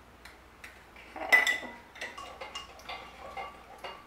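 A spoon clinking and tapping against a glass measuring cup as dry soup mix is stirred into broth, with one sharper, ringing clink about a second in and lighter irregular taps after it.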